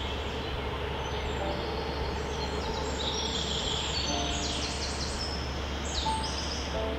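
Small songbirds chirping in quick, high runs of notes, busiest from about three seconds in, over a steady background hiss and a low hum.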